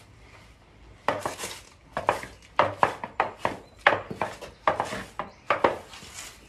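Long-handled broom sweeping over concrete paving slabs: a run of quick scraping strokes, several a second, starting about a second in.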